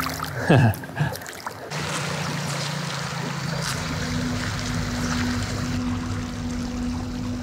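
A splash in shallow water about half a second in as a small rainbow trout is released and kicks away. Then a stream runs steadily under soft background music with low held notes.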